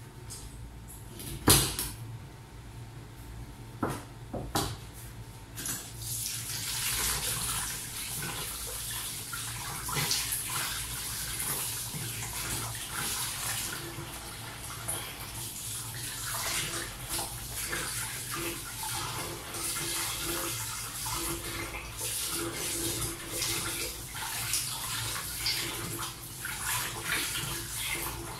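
A few sharp knocks of a knife chopping fish on a plastic cutting board, the loudest about a second and a half in; then from about six seconds in a kitchen tap runs steadily into the sink, splashing as the fish pieces are rinsed under it.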